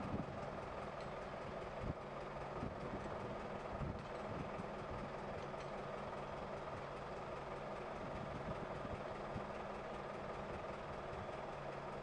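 Construction machinery running steadily at idle, a low hum with a few steady tones, with faint knocks about two and four seconds in.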